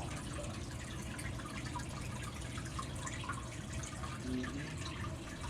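Fish tank filter running: water trickling and dripping into the tank over a steady low hum.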